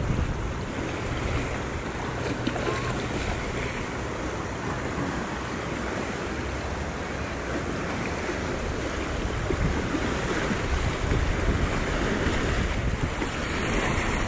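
Wind buffeting a chest-mounted action camera's microphone: a steady rushing noise with a heavy, fluttering low rumble, swelling a little near the end.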